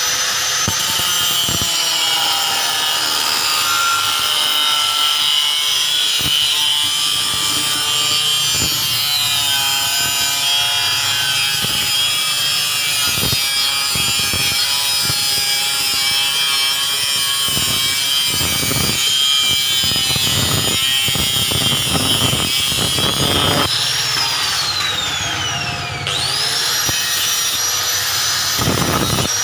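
Electric motor of a converted water pump spinning a coconut grater at speed: a high whine over a harsh rasping scrape. About 24 seconds in it is switched off and winds down in a falling whine, then starts again and spins back up.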